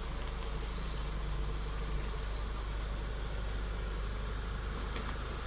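Volkswagen Passat 2.0T turbocharged four-cylinder engine idling steadily.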